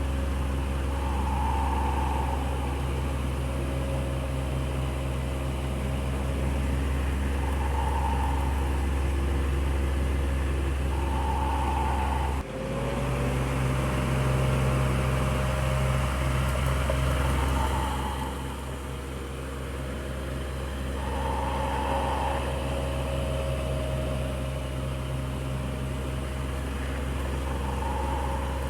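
Electric fan running steadily: a constant motor hum with the rush of moving air. A soft swell recurs every few seconds, and the sound dips briefly about halfway through.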